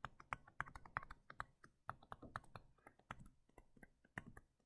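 Faint, irregular clicks and taps of a stylus on a tablet screen while handwriting, several a second.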